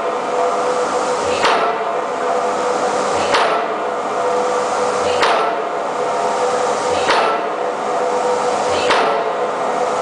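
Impact hammer driving an open-end steel pipe pile: five heavy blows, about one every two seconds, over a steady machinery drone.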